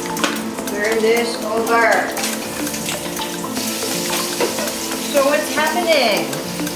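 A utensil stirring and clinking rapidly against a small dish over a steady sizzling hiss from the stove, with a couple of short melodic snatches about a second in and again near the end.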